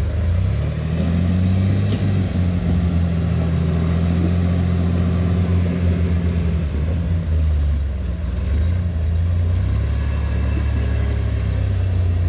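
Rock-crawling off-road rig's engine running steadily at low revs, its pitch stepping up and down a little as the throttle changes.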